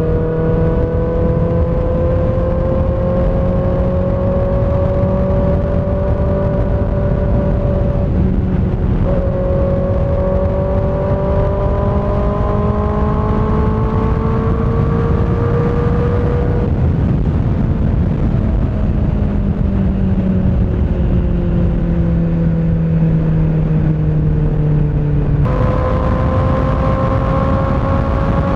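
Kawasaki ZX6R's inline-four running through an M4 GP19 slip-on exhaust with its dB-killer insert, heard while riding. The engine note climbs slowly as the bike accelerates, with a shift break about eight seconds in, then falls away as it slows and steps up sharply again near the end.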